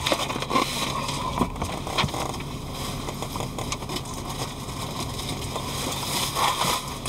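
Steady road and engine noise inside a moving car's cabin, with a few light clicks.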